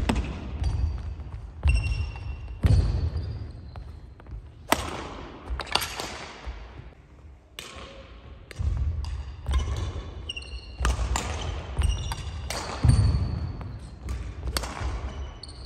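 Badminton rally on a wooden hall floor: sharp racket strikes on the shuttlecock that ring on in the hall, short high squeaks of shoes on the floor, and the thud of footfalls. It goes quiet for a moment about 7 to 8 seconds in, between points, before the strikes and squeaks start again.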